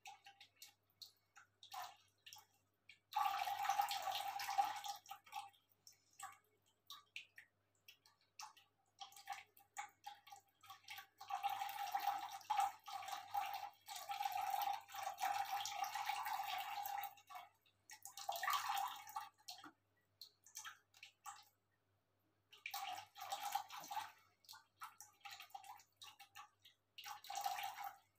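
Cat lapping water from a plastic bucket: quick, wet lapping in bouts of a few seconds, the longest about six seconds in the middle, with scattered small drips and ticks in the pauses.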